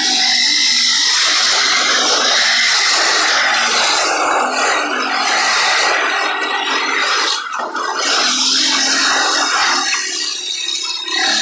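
Four-stroke ATV engine running as the quad drives across sand, largely covered by loud wind rush on the microphone. The engine's steady tone stands out more at the start and near the end, with a brief drop in level about seven and a half seconds in.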